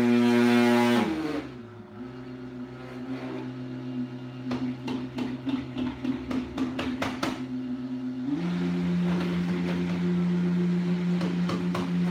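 High-powered blender motor running on thick chocolate avocado mousse while a tamper is pushed down into the jar. The motor drops to a lower speed about a second in, with uneven knocking and churning from the thick mixture, then steps back up to a higher, louder steady pitch about eight seconds in.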